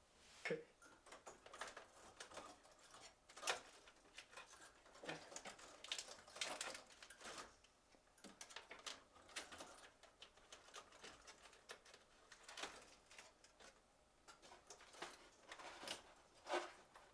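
Faint, scattered clicks and rustles of a refrigerator wiring harness being handled and threaded through the freezer's evaporator coil.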